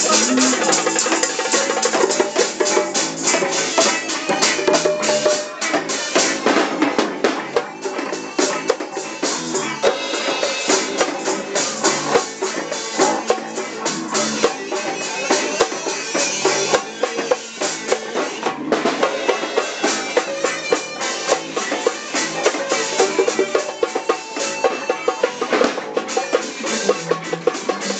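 Reggae band playing at a soundcheck, with the drum kit to the fore: a steady beat of snare and rimshot strokes over the rest of the band, with very little deep bass.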